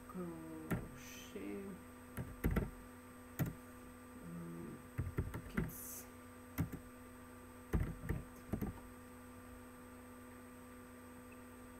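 Computer keyboard keys clicking in irregular, scattered strokes as a search phrase is typed, with a few louder knocks among them.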